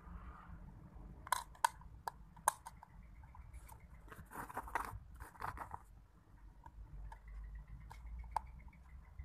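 Hands fitting a 9-volt battery into a guitar's battery compartment and handling its cover plate: a few sharp clicks in the first few seconds, then rustling scrapes.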